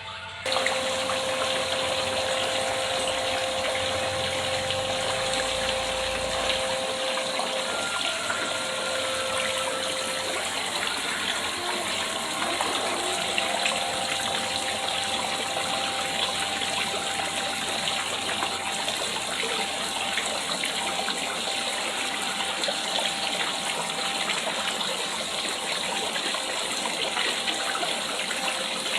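Water falling steadily into a pond from a small cascade, a constant splashing rush that starts suddenly about half a second in.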